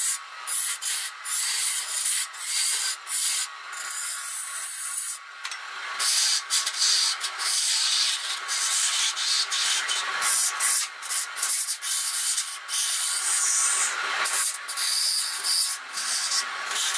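Hand turning tool cutting into spinning wood on a lathe: a steady, high scraping hiss that breaks off briefly many times as the tool comes off the wood.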